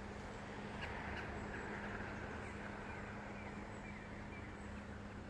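Outdoor ambience with a bird chirping faintly: a run of short, falling chirps repeated over several seconds, over a steady low hum.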